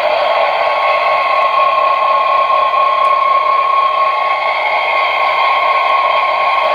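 A small motor whining steadily at one high pitch, with a rushing hiss under it and no change in speed.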